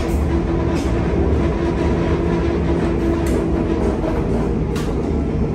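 Alstom Citadis X05 light rail tram running at speed, heard from inside the passenger cabin: a steady low rumble of wheels on rail, with a steady hum that drops away about four seconds in. Three short sharp clicks come through it.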